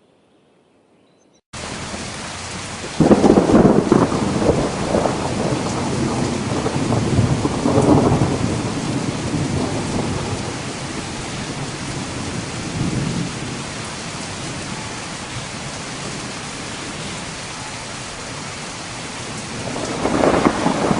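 Heavy rain on a steady hiss with rolling thunder, cutting in suddenly about a second and a half in. Loud rumbles swell about three seconds in and again around eight seconds, and another builds near the end.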